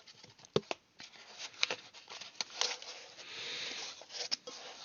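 Handling noises as the steel base plate and its packaging are handled: scattered sharp clicks and knocks, with a stretch of rustling about three seconds in.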